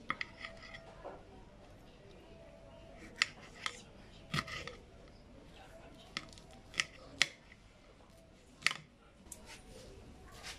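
Kitchen knife slicing a green pepper over a plate, a sharp click with each cut, about eight cuts at uneven intervals.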